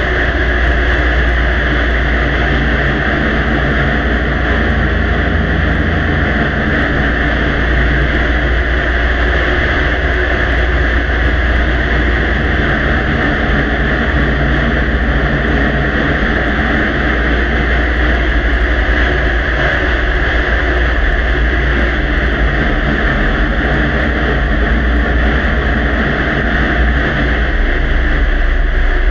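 Steady drone of a faint recording's background noise boosted far beyond its normal level: a low rumble and hum under a wide, even hiss, with no words or distinct clicks standing out.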